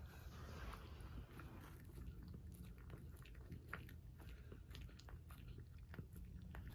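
Small dog eating from a ceramic mug: faint, scattered chewing and clicks.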